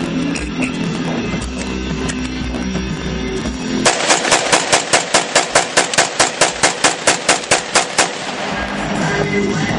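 Ruger Mini-14 rifle in .223/5.56 fired rapidly to empty the magazine: about twenty shots at roughly five a second, starting about four seconds in and stopping about four seconds later. Guitar music plays before the shots and comes back near the end.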